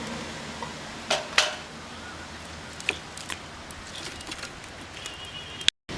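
A few sharp clinks and knocks of cookware, the loudest pair about a second in and smaller ones near the middle, over a steady low background hiss.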